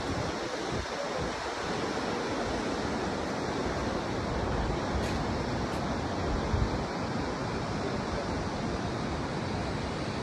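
Steady wind rushing, with irregular low buffeting where it hits the microphone.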